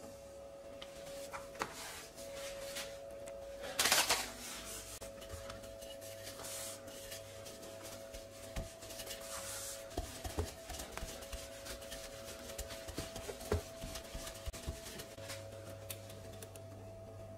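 Handling sounds of laminated croissant dough on a worktop as it is trimmed with a utility knife and rolled out with a wooden rolling pin: a short loud rasp about four seconds in, then scattered light knocks and clicks, over a faint steady hum.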